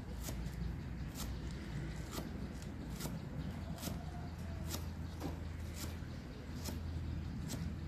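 Knife chopping fresh green herbs on a round wooden chopping block: sharp knocks of the blade striking the wood, about one a second.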